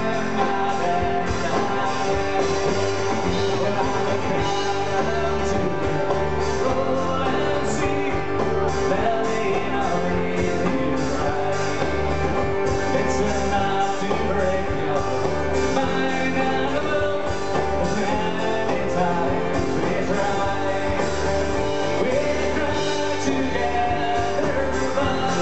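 Live acoustic folk-rock band playing: strummed acoustic guitars and a singing voice, recorded from among the audience.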